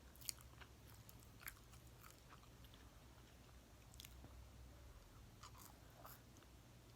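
Faint chewing of food close to the microphone, with a few sharp crunches or mouth clicks scattered through it; the loudest comes about a third of a second in and another at about a second and a half.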